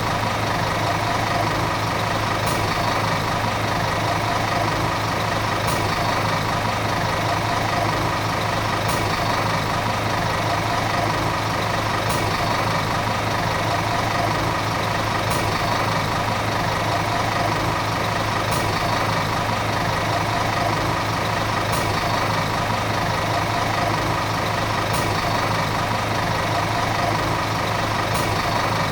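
Volvo city bus diesel engine running steadily, a constant low drone with no change in speed. A faint high click recurs about every three seconds.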